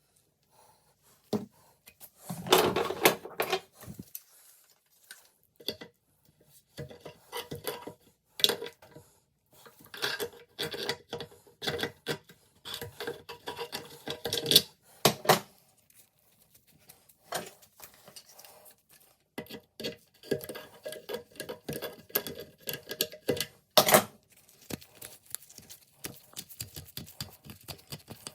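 A socket ratchet clicking in bursts as it turns the toilet's tank-to-bowl bolts, with metallic clinks and knocks of tools and parts between the bursts and a short scraping noise near the start.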